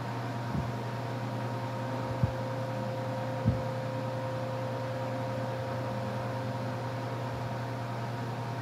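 Lakewood HV-21T and Lasko H20301 high-velocity floor fans running at speed: a steady rush of air with a motor hum and a faint whine. Brief low thumps come about two and three and a half seconds in.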